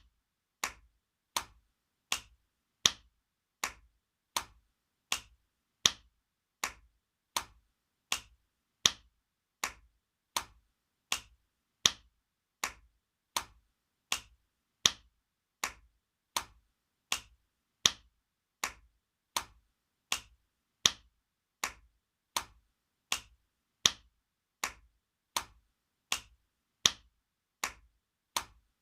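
Spanking sound effect: a steady run of sharp hand slaps on skin, one about every three-quarters of a second, with every fourth slap louder.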